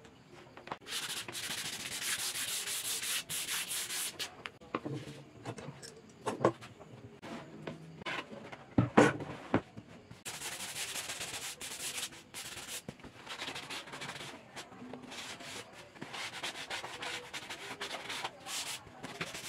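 Hands brushing and rubbing across a plywood board in several stretches of repeated strokes, clearing sawdust from the routed surface, with one sharp knock about nine seconds in.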